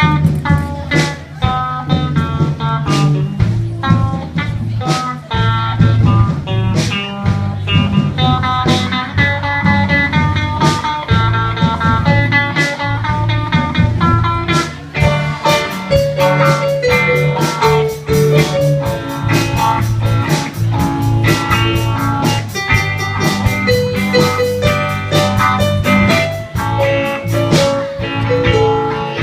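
Music: a plucked guitar melody over a steady bass line and beat, in a bluesy style.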